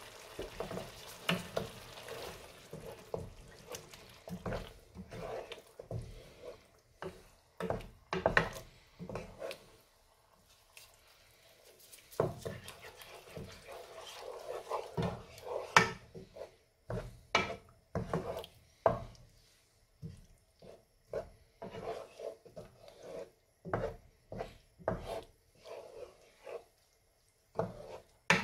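Wooden spoon stirring thick tomato-and-chilli sauce in a frying pan, scraping and knocking against the pan with irregular taps, with a short pause about ten seconds in. A faint steady hum runs underneath.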